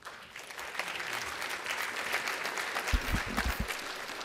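Audience applauding, building up over the first second. A few low thumps come about three seconds in.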